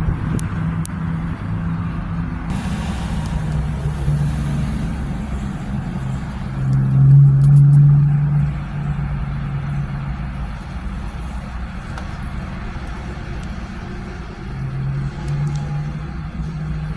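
Road traffic passing on a multi-lane street: a steady run of engine and tyre noise. One vehicle passes close and loudest about seven to eight seconds in, and another swells near the end.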